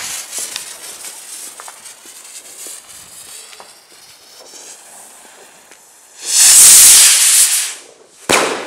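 A firework rocket (Weco Tiger rocket) lifts off with a hiss that fades into faint fizzing and scattered crackles. About six seconds in a loud rushing hiss lasts about a second and a half, and a sharp bang with a short echo follows near the end.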